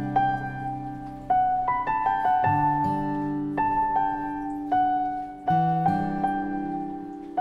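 Slow, gentle solo piano music: single notes and chords are struck every second or so and left to ring and fade.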